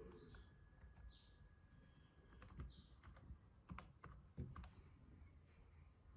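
Faint typing on a Dell XPS 13 laptop keyboard: a dozen or so irregularly spaced key clicks.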